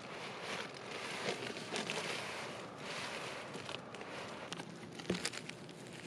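Crinkling and rustling of an inflatable sleeping pad and the tent's Dyneema floor fabric as a hand presses and shifts them, with a brief knock about five seconds in.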